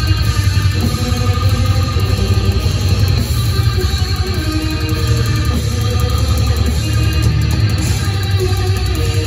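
Death metal band playing live at full volume: heavily distorted electric guitars over drums, with a boomy, heavy low end, heard from within the crowd.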